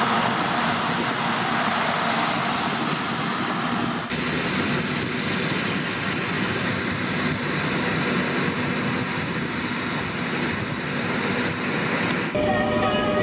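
Claas Tucano 440 combine harvester running under load while cutting rapeseed: a steady mix of engine and threshing noise. Near the end the sound changes abruptly to a different steady sound with a few held tones.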